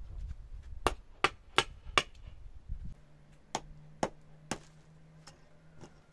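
Sharp knocks of a small hand tool striking stone: four quick blows about a third of a second apart, then a short pause and five more, more widely spaced.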